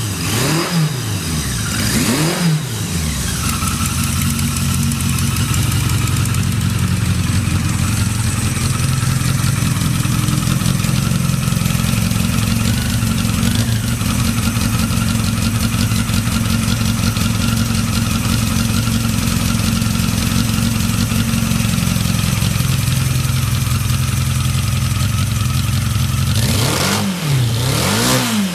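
Yamaha XJ750E air-cooled inline-four motorcycle engine idling steadily, with two quick throttle blips in the first few seconds and another near the end. The idle is stable and, by the seller's account, free of abnormal noises.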